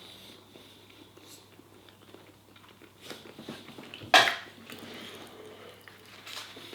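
A person chewing chicken wing meat off the bone, with soft mouth sounds. A sharp click stands out about four seconds in, and a smaller one near the end.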